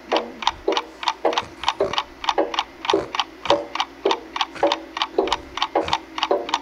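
Clock ticking fast and evenly, about four ticks a second, each tick followed by a brief low ringing tone.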